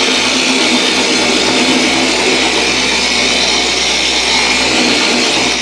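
Dual action (DA) polisher switched on and running steadily at its lowest speed, a foam pad spreading scratch-repair polish across the car's paint.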